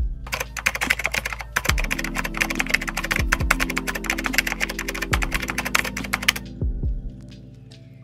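Rapid computer-keyboard typing sound effect, a dense clatter of keystrokes that stops about three-quarters of the way through, over soft background music with a low beat.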